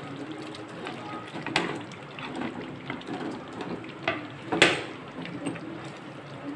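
Fried chicken pieces going into hot masala gravy in a pan and being stirred with a wooden spatula: a wet bubbling and sizzling with scraping, and two sharp clanks, the louder one about two-thirds of the way through.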